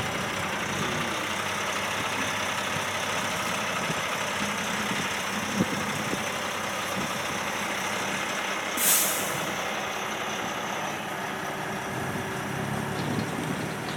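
Kenworth cab-over truck and loaded trailer rolling slowly past, its diesel engine running steadily. About nine seconds in there is one short, sharp hiss of air from the air brakes.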